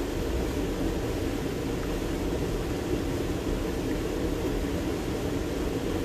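Steady rushing of creek water, an unbroken even roar that is strongest low in pitch.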